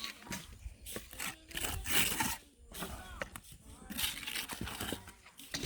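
Irregular scraping and knocking, a series of short scrapes and knocks with a brief pitched sound now and then, consistent with hand work on concrete blocks and mortar.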